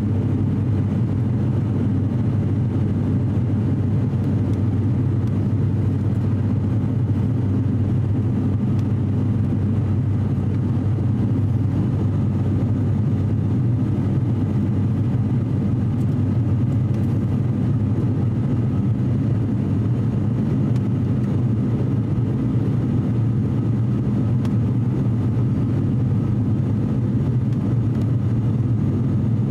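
Cabin noise of an ATR 42-600 twin turboprop climbing after takeoff: the steady drone of its Pratt & Whitney PW127 engines and propellers, a deep hum with faint steady whining tones above it.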